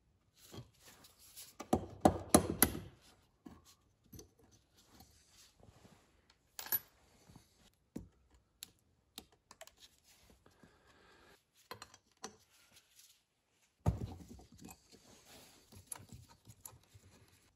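Small metal parts and tools clicking and clattering against a snowmobile carburetor's body as it is taken apart and its jets and screws are handled. There is a cluster of louder clicks about two seconds in and another near the end.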